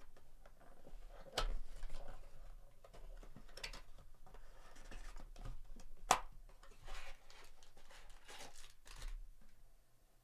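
A cardboard Panini Prizm trading-card box being opened by hand: a sharp cardboard snap about a second and a half in and a louder one around six seconds, with tearing and rustling of the box and its foil packs in between.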